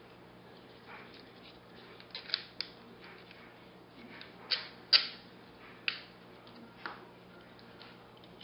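Small sharp clicks and scrapes of an electric motor's case and long through-screws being handled and fitted together, about half a dozen irregular clicks, the loudest about five seconds in.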